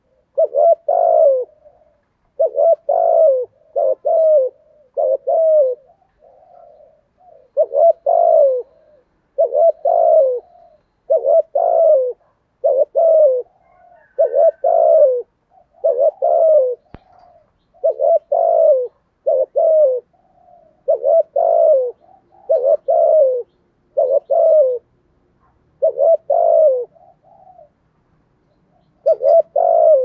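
Spotted dove cooing in a deep 'thổ' voice: a long run of short, low coos, each falling slightly in pitch, mostly in twos and threes with brief pauses and a longer pause near the end. It is a rapid 'thúc gù' cooing used as a decoy call to draw wild doves.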